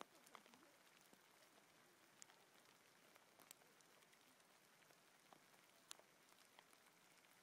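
Faint, steady hiss of hail coming down, with scattered sharp ticks of single hailstones striking close by, roughly one a second.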